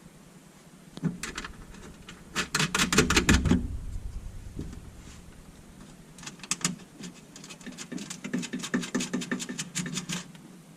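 Ratchet wrench clicking in rapid runs as the 8mm nuts are run down onto the tail light assembly's studs: a short run about a second in, a louder one from about two to three and a half seconds, and a longer one in the second half.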